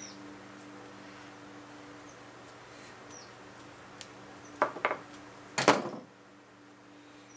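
A hand tool snips a strip of rubberized tape off the roll with a faint click. A few seconds later come sharp knocks and clatters as the tool and the tape roll are set down on a wooden workbench, over a steady low hum.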